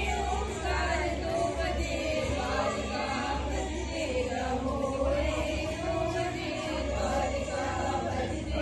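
A group of women singing a devotional puja song together in unison, with voices wavering and overlapping.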